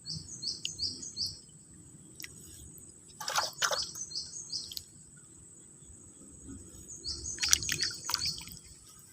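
A bird calls three times, each time a quick run of four or five high chirps. Twice, about three seconds in and again near the end, there is a short burst of splashing or clattering.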